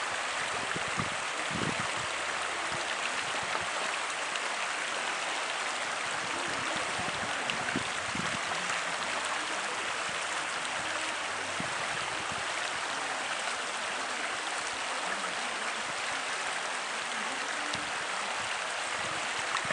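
Shallow mountain river flowing steadily over a stony bed, a continuous even rush of water.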